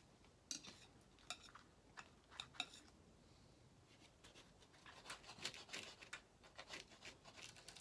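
Faint clicks and scrapes of a blade cutting through a wood-fired pizza on a plate: a few separate clicks, then a quicker run of scraping cuts about five seconds in.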